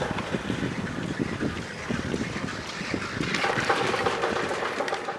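Leitner chairlift haul rope and chair running through a tower's sheave rollers: a dense rumbling clatter with hiss, fading near the end as the chair moves clear of the tower.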